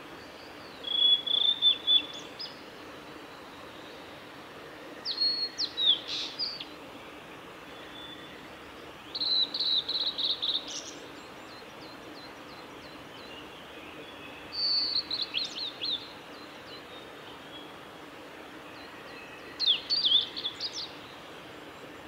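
Male blue-and-white flycatcher singing: five song phrases four to five seconds apart, each a clear whistle followed by a quick run of falling notes, over a steady background hiss.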